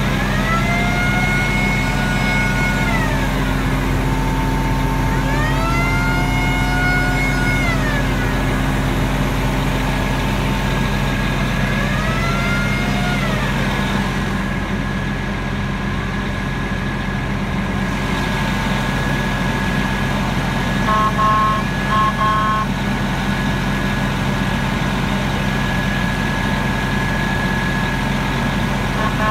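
Pierce fire engine's diesel engine running with its fire pump engaged, giving a steady low drone. Three times, a whine rises, holds for a second or two and falls back. A short run of beeps comes about two-thirds of the way through.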